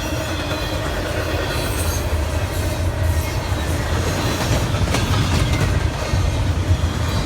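Freight train cars rolling past: a steady low rumble of steel wheels on rail, with clacks over the rail joints and a thin wheel squeal. The rumble eases off just after the end.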